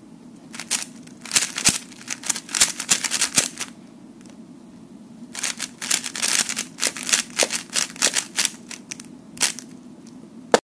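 Layers of a plastic 4x4 speed cube clicking as they are turned in quick finger-tricks during the 3x3 stage of a solve. There are two runs of rapid turns with a pause of about two seconds between them, and a single sharp click near the end.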